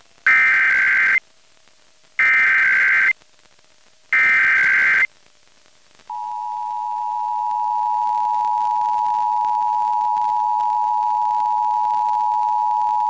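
Emergency Alert System test: three short SAME header data bursts, each about a second long with a second of silence between them. About six seconds in, the steady two-tone EAS attention signal begins, swelling slightly over its first couple of seconds and then holding.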